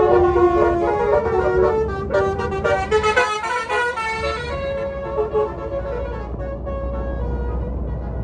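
Tour bus 'basuri' telolet musical horn playing a fast melody of changing notes, then a few held notes that fade away after about five seconds, leaving a low engine rumble as the bus passes.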